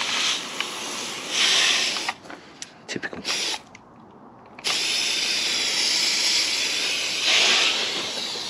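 Hand-pumped IK foam sprayer hissing as it sprays Surfex HD degreaser over an engine bay. Two short bursts come first, then a few clicks, then a long continuous spray.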